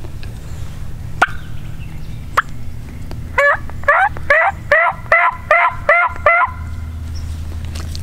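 Diaphragm mouth turkey call blown in a run of about eight hen yelps, roughly two a second, each note breaking from high to low.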